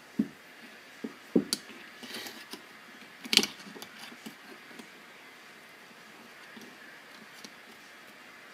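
Metal knocks and clanks from brake calipers and tools being handled while the pistons are worked out: a handful of sharp strikes in the first four seconds, the loudest about three and a half seconds in, then only faint background noise.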